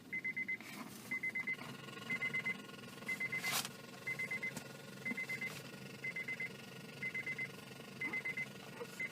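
Electronic alarm beeping: bursts of four quick high beeps, repeating about once a second. A brief knock sounds about three and a half seconds in.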